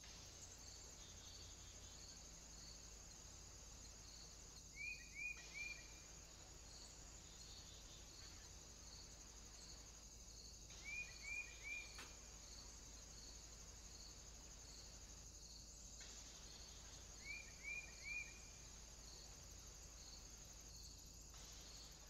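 Faint, steady high insect trilling in regular pulses, with three short runs of three quick descending chirps heard three times.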